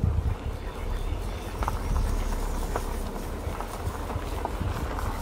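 Vehicle creeping slowly along a gravel driveway: a steady low engine and tyre rumble with scattered sharp crunches and clicks.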